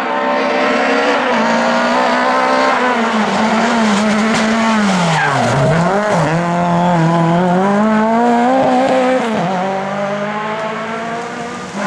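Lada race car engine at high revs, its pitch climbing, then falling sharply about halfway as it comes off the throttle for a corner, then climbing again, with tyres squealing.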